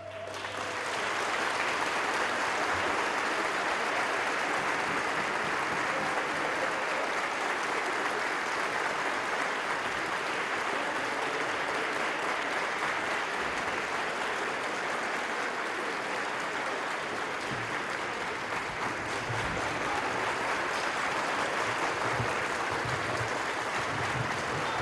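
Audience applauding at the end of a musical performance. The clapping swells within the first second and then holds steady and sustained.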